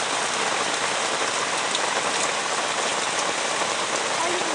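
Steady rain falling on leaves and ground, with a few sharper drops.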